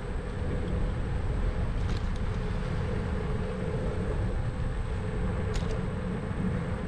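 A vehicle running steadily: a continuous low rumble with a steady hum above it, and a couple of faint clicks.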